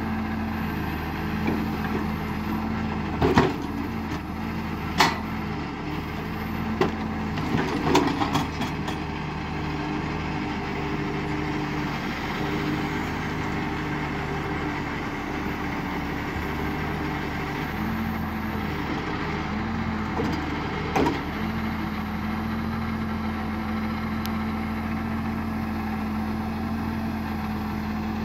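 Valtra 8350 tractor's diesel engine running steadily to drive the Palms forestry crane's hydraulics, its note changing in the middle while the crane works. Sharp knocks of logs striking wood and the trailer's steel stakes come about 3 and 5 seconds in, a cluster around 8 seconds and one more about 21 seconds in.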